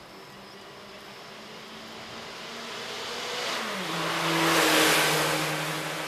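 A car passing by on the street. Its tyre and engine noise swells to a peak about five seconds in and then fades, and the engine's hum drops in pitch as it goes past.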